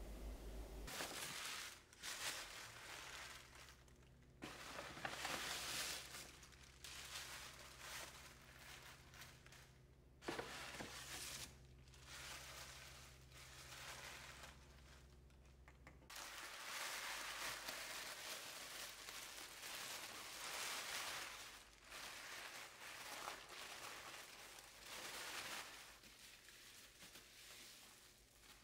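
Tissue paper and bubble wrap crinkling and rustling as small wrapped items are unpacked by hand, in irregular bursts with short pauses between them.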